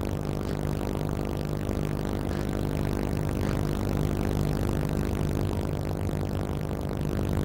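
Tug's diesel engine running steadily, a low throb that pulses a few times a second.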